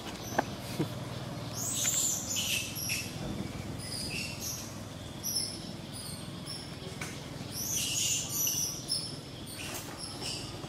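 Short, high-pitched chirping calls in quick runs: a cluster about two seconds in and another near eight seconds, with scattered single chirps between.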